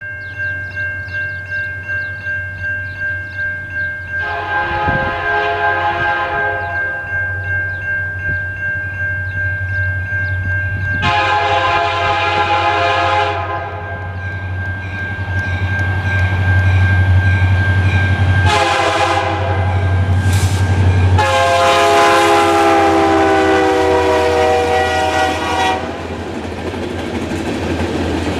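EMD SD40-2 diesel-electric locomotive sounding its multi-chime air horn in the grade-crossing pattern as it approaches and passes: two long blasts, a short one, then a long one whose pitch drops as the locomotive goes by. Its diesel engine runs underneath, louder as it nears, and a bell rings steadily through the first half; near the end the freight cars roll past, wheels clattering over the rail joints.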